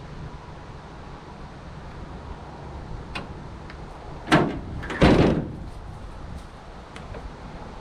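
Two loud clunks about a second apart, the second trailing off briefly, with a few lighter clicks before and after, over a steady low rumble of wind.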